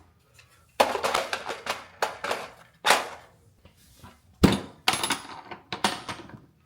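A series of about a dozen sharp hard knocks and clacks, irregularly spaced, with the loudest and deepest thunk about four and a half seconds in.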